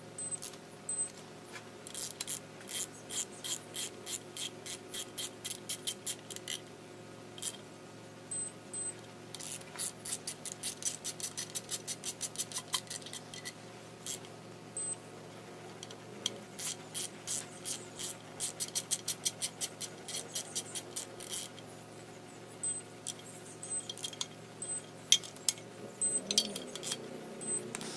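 Ratchet of a digital torque wrench clicking in fast runs of sharp metallic clicks, sped up, as windage-tray bolts are run down and torqued to about 25 ft-lb.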